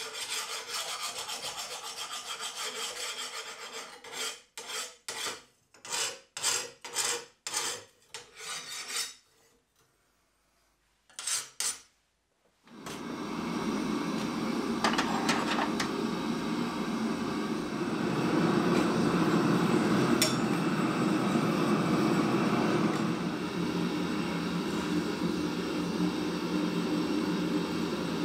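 Hand file rasped across a freshly quenched steel blade: scraping, then a run of about eight separate strokes, a short pause and two more. About halfway through, a gas forge's burner takes over with a steady, even rush.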